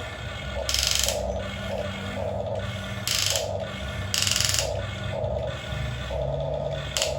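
Small electric gear motors of a toy RC excavator whirring in short bursts, three longer runs and a brief one near the end, as the machine is worked.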